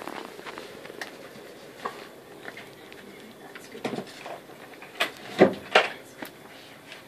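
Springer spaniel puppies scrambling about a wooden shelf unit: scattered small knocks and bumps, with three louder, sharper knocks in quick succession about five seconds in.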